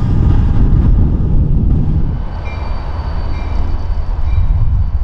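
Train rumbling past, easing off about two seconds in, while a short high beep repeats about once a second.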